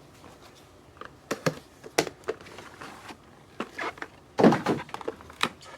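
Scattered taps and knocks of trading cards and packs being handled on a table, with a louder burst of handling noise about four and a half seconds in.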